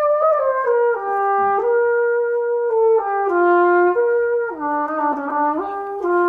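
A trumpet made in St Petersburg in 1913 being played: a slow melodic phrase of held notes that step up and down in pitch, with a quick run of short notes a little past the middle.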